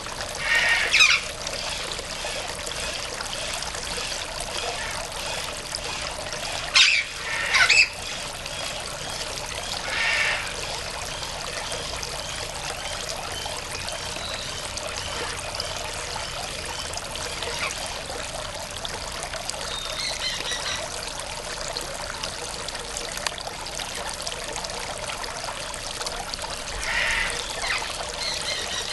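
Steady trickle of running water, with a few short, harsh calls from a yellow-collared macaw; the two loudest calls come close together about seven seconds in.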